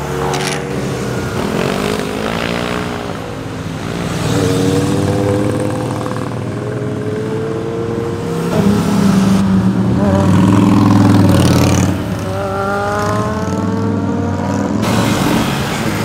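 Sport motorcycle engines passing one after another, each revving up in pitch as it accelerates through the gears; the loudest pass comes about nine to twelve seconds in.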